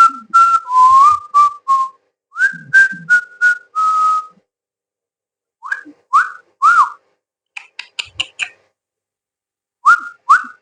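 A person whistling a run of short notes to coax a pet bird to sing: first a quick string of steady notes, then after a pause groups of three notes that rise and fall, with a few short chirps in between.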